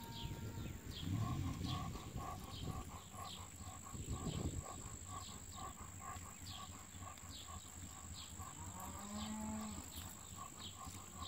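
Cattle mooing a few times in the background, low and drawn out. Over it, a horse lopes on soft arena dirt.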